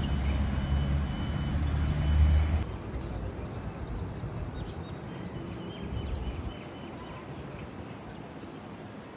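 A motor vehicle's engine running close by, low and loud, cut off abruptly under three seconds in, giving way to quieter street ambience.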